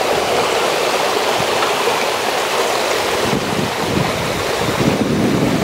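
Steady outdoor rushing noise, with stronger low, uneven rumbles about midway through.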